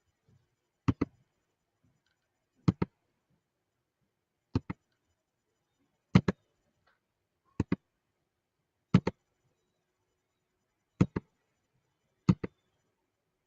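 Eight sharp double clicks, each pair a quick press and release, spaced about every one and a half to two seconds with near silence between.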